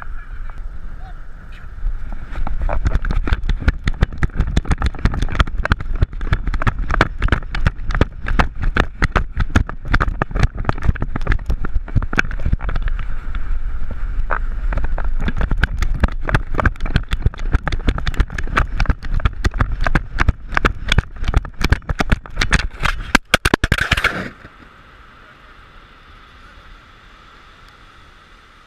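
Harness-mounted action camera jolting and knocking with each stride of a running greyhound, with wind buffeting the housing. From about two seconds in the knocks come fast and irregular, then cut off suddenly near the end, leaving a faint hiss.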